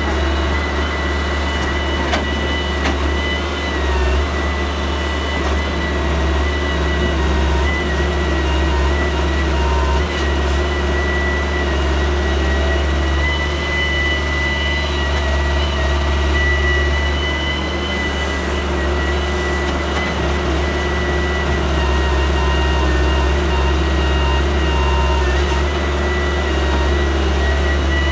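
Heavy diesel machinery running steadily: a constant low engine drone with a steady high whine above it.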